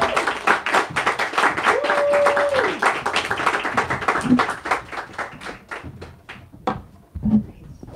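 Audience applauding, a dense patter of hand claps that thins out and dies away about six seconds in.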